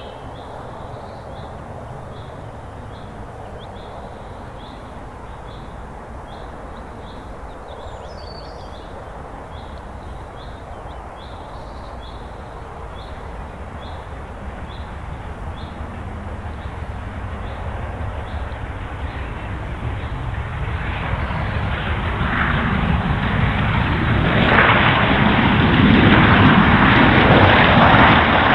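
Steam locomotive under steam hauling a single support coach, its running sound swelling steadily as it approaches and loudest over the last few seconds.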